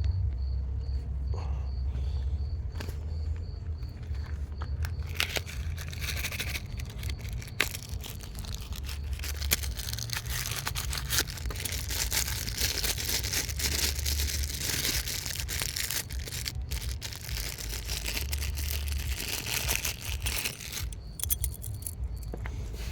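Close rustling and crinkling with scattered small clicks and knocks, from hands working right at the microphone, loudest from about five seconds in until near the end. Crickets chirp steadily at the start and again near the end, over a low rumble.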